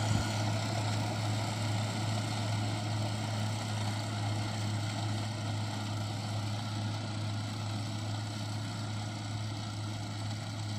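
Kubota rice combine harvester's diesel engine running steadily, a constant low drone.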